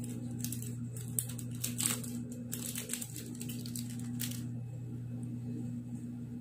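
Plastic chocolate-bar wrapper crinkling as it is handled, in a run of short crackles that stops after about four seconds, over a steady low hum.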